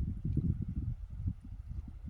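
Wind buffeting the microphone: an uneven, gusting low rumble that eases off a little after about a second.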